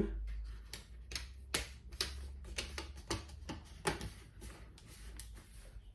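Plastic clips of a laptop screen bezel snapping into the lid's back cover as it is pressed into place: a series of irregular sharp clicks and taps.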